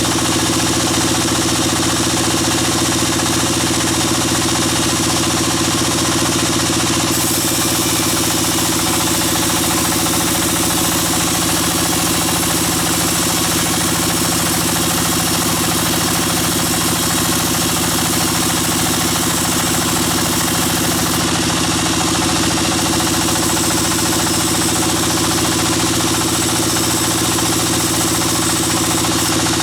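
Sawmill bandsaw machinery running steadily: a continuous motor sound with a steady low hum under a wide noise. A brighter high hiss joins about seven seconds in.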